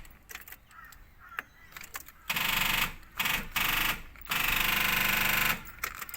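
Holden Commodore's starter being tried in several short bursts, each a second or less, with a rapid mechanical clatter and no engine catching, which the owner takes for a seized engine.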